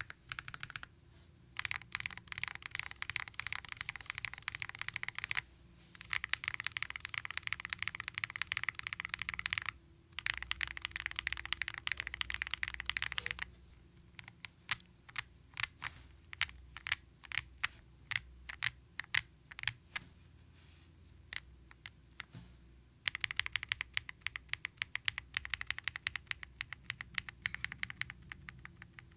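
Typing on a KBDfans D45 V2 custom mechanical keyboard with factory-lubed Roller linear switches on a PC plate and Key Kobo 2T Blue keycaps. There are fast runs of keystrokes, a slower stretch of single key presses about halfway through, then fast typing again near the end.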